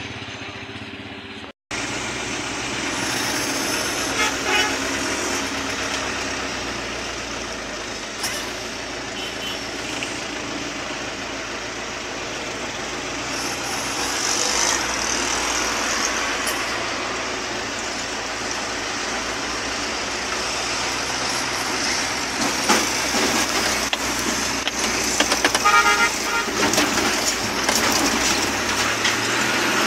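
Traffic heard from inside a truck cab: a steady truck engine and road noise, with other vehicles' horns honking now and then. A quick run of short horn toots comes near the end.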